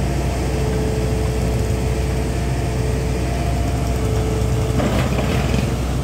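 A truck-mounted borewell drilling rig's engine running steadily with a low hum. A steady high whine sits over it until near the end, when a brief rush of noise comes in.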